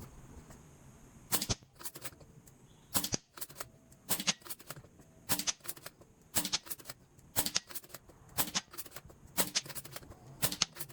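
An air rifle firing shot after shot, about one a second, each a sharp crack. The pellets are hitting a cheap children's toy xylophone, which does not ring out a clear note: the gun is too powerful for it.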